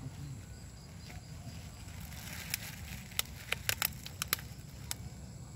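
A run of sharp plastic crinkles and crackles starting about two seconds in and lasting about two seconds, over a low steady rumble.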